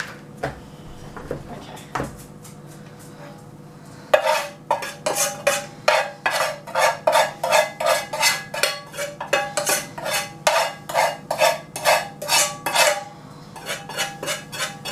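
A spoon scraping and knocking against a frying pan as cake batter is scraped out of it into a plastic mixing bowl. A few scattered knocks at first, then from about four seconds in a quick run of sharp clacks, about two or three a second, easing off near the end.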